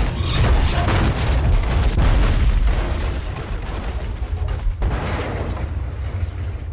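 Collapse sound effect: it starts with a sudden crash and goes into a long, deep rumble full of small cracks and impacts. A second surge comes about five seconds in, then it dies away.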